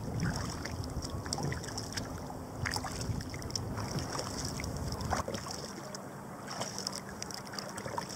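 Sea kayak under way: paddle blades dipping and splashing, with water dripping and lapping around the hull. Wind rumbles on the microphone and eases a little about five seconds in.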